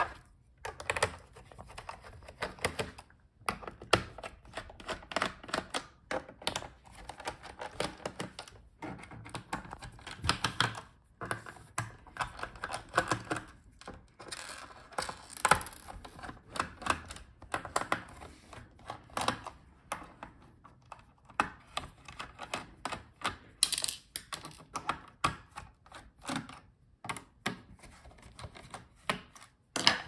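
A small screwdriver backing out the screws of a Gigabyte G5 laptop's plastic bottom case: an irregular run of light clicks and ticks, metal on screw heads and plastic, with a few sharper knocks.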